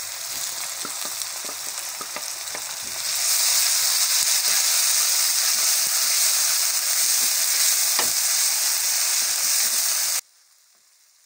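Chopped onions and ginger-garlic paste sizzling in hot oil in an aluminium karahi, stirred with a wooden spatula that scrapes the pan. The sizzle grows much louder about three seconds in, then cuts off abruptly about a second before the end.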